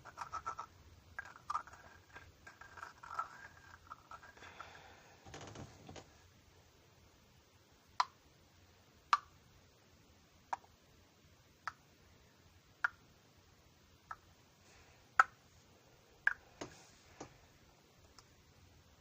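Close-miked scratching and rustling for the first few seconds, then a slow series of about ten sharp single clicks or taps, roughly one a second.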